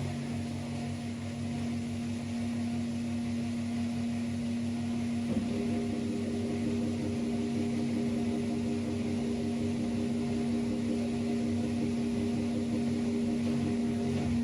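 Gorenje PS 443 washing machine running, its Sever Subotica motor giving a steady hum with a held tone; the pitch mix shifts slightly about five seconds in.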